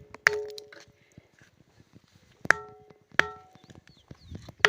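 A ringing boulder (the Pedra do Sino) struck several times, each blow giving a clear bell-like ring that dies away over about a second; two strikes come early, two more in quick succession about two and a half seconds in, and another at the very end. It rings the same in wet weather, which the striker puts down to the way the stone sits on the rock slab beneath it.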